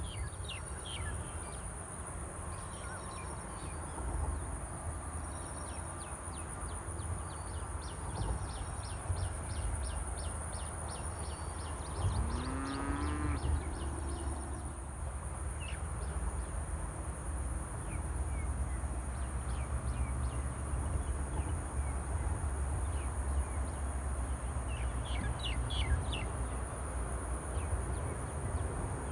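Small birds calling in runs of short, high chirps, one wavering call rising in pitch about halfway through, over a steady high-pitched insect whine and a low rumble.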